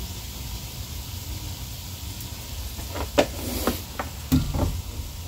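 Cooked chicken and green chilies sizzling steadily in hot oil, with a few sharp clacks of a utensil stirring the mixture in the second half.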